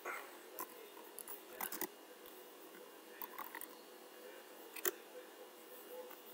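Computer keyboard keys clicking as someone types, in short irregular runs of faint keystrokes over a low steady hum.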